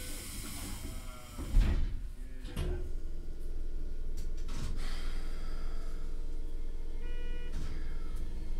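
Inside a Keikyu 1500 series commuter train: the passenger doors slide shut with a thud about a second and a half in, and a second knock follows. From about three seconds in, the car's Toyo IGBT VVVF traction drive starts up with a steady hum and rumble as the train pulls away.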